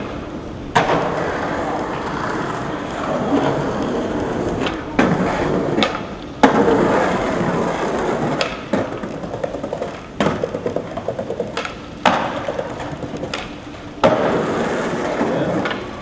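Skateboard wheels rolling over pavement, broken about six times by sharp clacks of the board popping and slapping down on landings, the loudest about six and a half seconds in.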